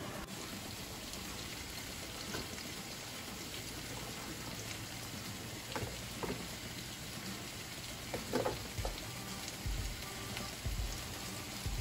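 Pot of water with potatoes boiling hard, a steady bubbling. From about six seconds in come small splashes and knocks as broccoli florets are dropped into the boiling water, the busiest about eight seconds in.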